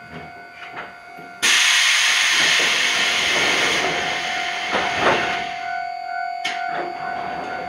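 A sudden loud hiss of compressed air from the Iyotetsu 3000-series electric train's air system, starting about a second and a half in and easing off about five seconds later, over a steady faint whine.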